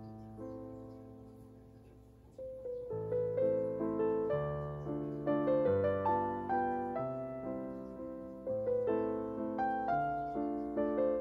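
Background piano music. A chord fades away over the first couple of seconds, then a steady run of notes picks up and carries on.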